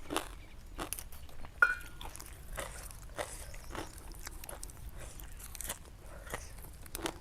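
Close-up crunchy chewing and biting of food, in irregular crackly strokes, with one sharp ringing clink of a utensil on the bowl about a second and a half in.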